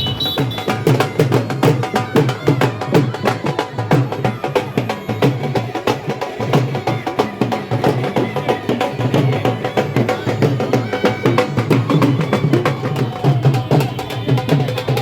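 Music driven by fast, dense percussion strikes over a steady low bass line.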